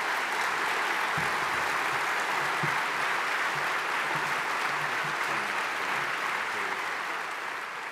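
A large audience applauding steadily, the clapping tapering off near the end.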